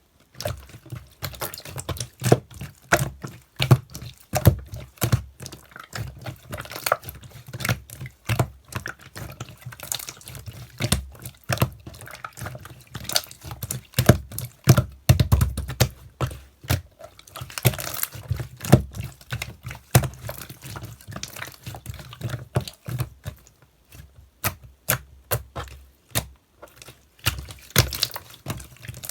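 Clear, watery slime being squeezed, poked and folded by hand, making a rapid, irregular run of wet clicks, pops and squelches with soft low thuds, easing off briefly a little past two-thirds through.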